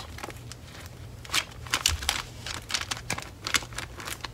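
Pages of a paperback journal being flipped through by thumb: an irregular run of quick paper flicks and rustles, a few sharper ones about a second and a half in.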